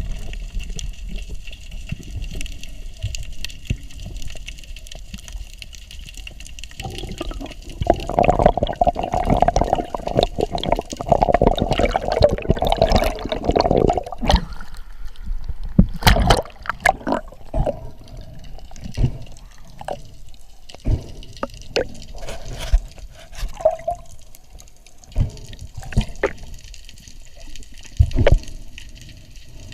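Underwater sound of water movement and bubbling, with scattered sharp clicks and knocks; the bubbling is densest from about seven to fourteen seconds in.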